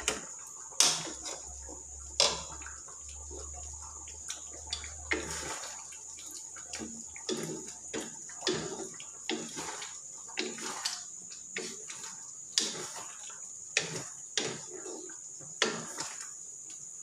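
Wooden spatula stirring thick curry sauce in a metal wok: irregular wet sloshing and scraping strokes, with a few sharp knocks of the spatula against the wok.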